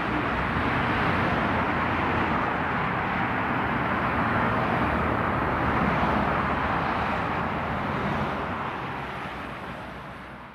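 Steady traffic noise from cars on a multi-lane expressway, the continuous rush of tyres and engines, fading out over the last two seconds.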